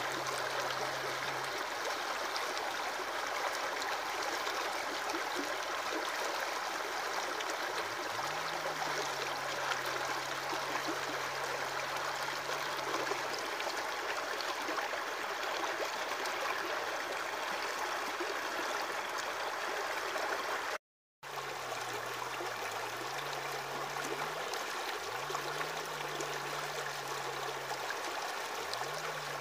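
Aquarium filter's water return splashing and trickling steadily into the tank, with a faint low hum underneath that slides up in pitch a few times. The sound cuts out completely for a moment about two-thirds of the way through.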